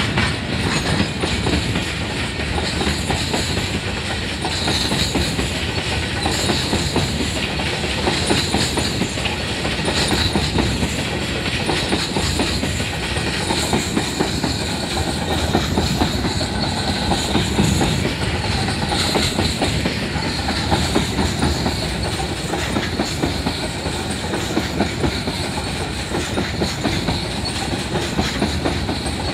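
Goods train of empty coal hopper wagons passing close by at speed: a steady, rapid clatter of wagon wheels over the rail joints.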